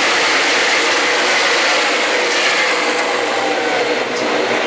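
A pack of NASCAR Cup V8 stock cars running at speed past the grandstand: a loud, dense, steady roar, with one car's note dropping in pitch as it goes by about halfway through.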